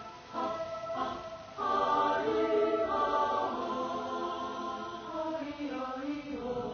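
Music: several voices singing together in a choir-like chant over sustained held tones, loudest from about two seconds in.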